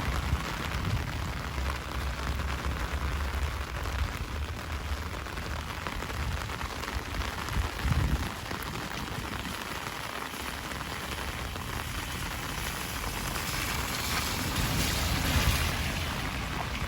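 Heavy rain falling steadily, with a low rumble underneath; the hiss of the rain swells louder and brighter about three quarters of the way through.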